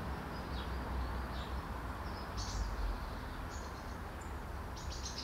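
Outdoor ambience: a steady low rumble, with short, faint high bird chirps about once a second.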